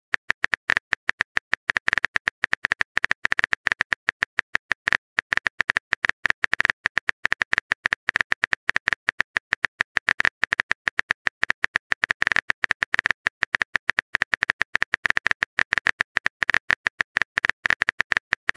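Typing sound effect: a fast, uneven run of keyboard tap clicks, several a second, as a chat message is typed out.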